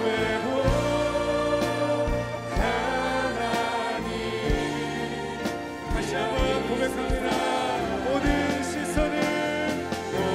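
Live Korean worship song: male and female voices singing together over acoustic guitar and a drum kit, the drums keeping a steady beat.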